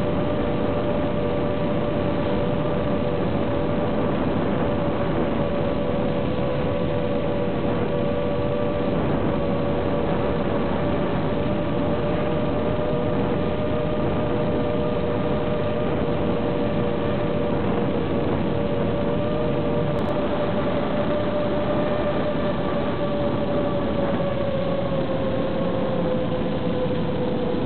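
Micro FPV quadcopter's motors and propellers in flight, a steady whine under a thick hiss, heard through the onboard microphone and the analog video transmitter's audio channel. The pitch sags slightly near the end.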